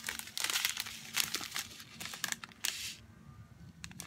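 Small plastic bags of diamond-painting drills crinkling as they are handled, a run of crackly rustles that dies down about three seconds in.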